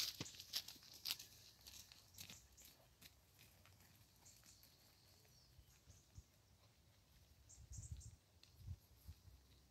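A horse's hooves crunching on a rubber-chip arena surface close by, a few sharp steps about half a second apart in the first second or so, then fading to faint ticks as the horse moves off. A few faint low thumps near the end.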